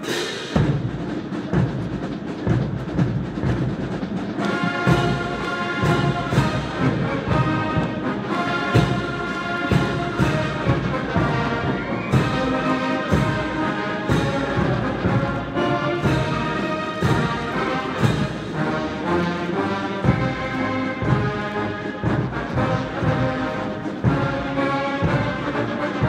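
Military brass band playing, brass over timpani and steady drum beats, striking up sharply after crowd shouting.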